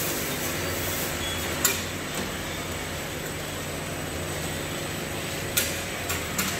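Automatic bottle filling and capping line running: a steady machine hum with a faint high whine, with a few sharp clicks from the line, one about a second and a half in and a few close together near the end.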